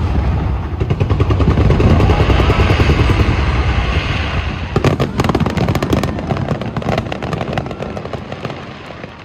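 Fireworks bursting: deep rolling booms, then a burst of dense rapid crackling about five seconds in, fading away near the end.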